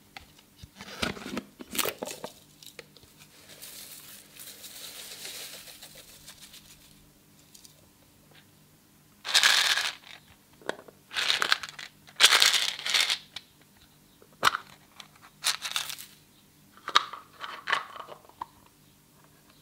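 Metallic foil confetti crinkling and crunching under hands, in a string of short, sharp bursts, with a softer, even rustle a few seconds in.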